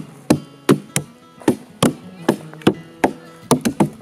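A hand-tool blade chopping out the inside of a hollowed log for a dugout canoe, sharp strokes at about two to three a second that come faster near the end. Acoustic guitar music plays underneath.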